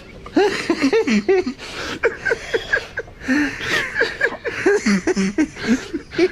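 Men laughing hard: a rapid string of short, gasping laughs, several a second, including a high wheezing laugh.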